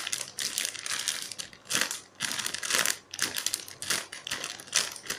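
Clear plastic bag crinkling on and off in irregular bursts as a banana-shaped squishy toy is handled inside it.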